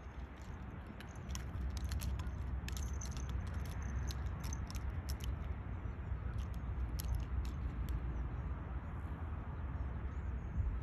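Metal collar tag jingling in short, sharp clinks as a cat rolls and squirms on dry leaves and dirt, over a steady low rumble.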